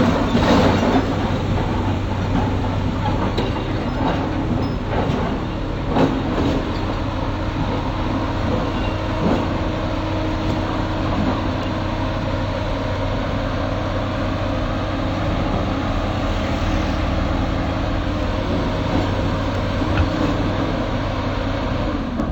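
Excavator's diesel engine running steadily, with a few sharp metallic clanks scattered through.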